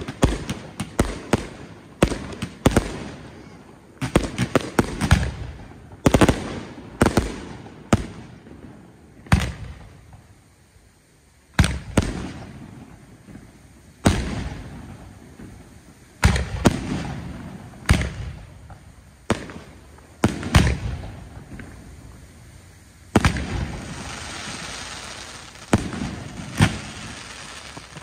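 Aerial fireworks shells bursting one after another at irregular intervals, each a sharp bang followed by a rolling rumble of echo, with a short lull about ten seconds in.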